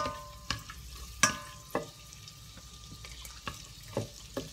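Crushed garlic frying in melted butter in a stainless steel saucepan with a soft sizzle, while a spoon stirs it and knocks against the pan about five times, each knock leaving a short metallic ring.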